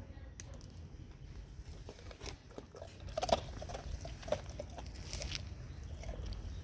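A dog chewing and crunching a treat, with irregular crunches that are loudest about halfway through.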